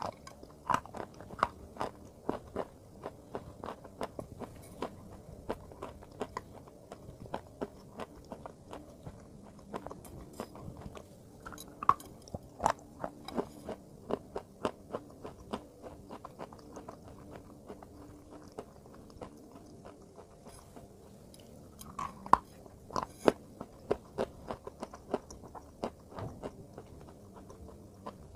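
Close-miked ASMR eating: a person biting and chewing a dry, crumbly, powdery block, with a dense run of sharp crunches and crackles. The loudest crunches come as fresh bites about twelve and twenty-two seconds in.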